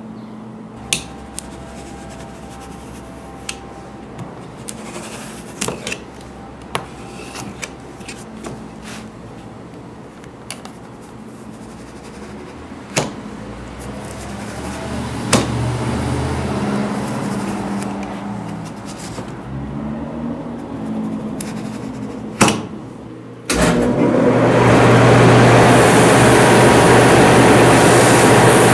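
A knife cutting and scraping through a thick white sole block, with scattered sharp clicks of handling. About 23 seconds in, this gives way abruptly to the loud, steady rushing of a Sutton shoe finishing machine as the block is ground down against its spinning abrasive wheel.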